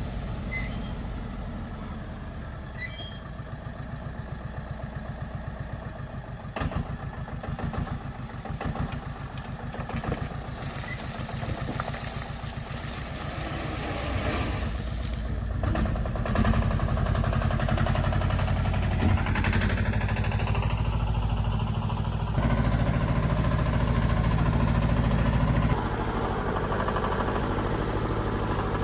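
Diesel engine of heavy earthmoving machinery running, with a steady low throb that grows louder about halfway through.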